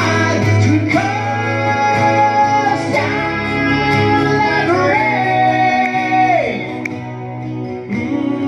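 Two acoustic guitars playing live with a lead singer holding long sung notes; the last held note slides down and drops away about six and a half seconds in, leaving the guitars playing on.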